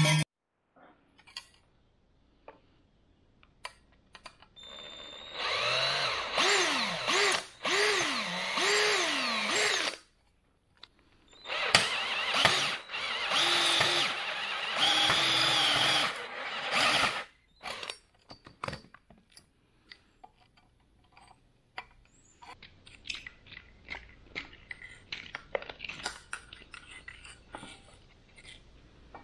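Handheld power tool working on exhaust pipe in two long runs of several seconds each, its pitch repeatedly dipping and recovering as it loads up. Light metal clicks and taps follow in the last third.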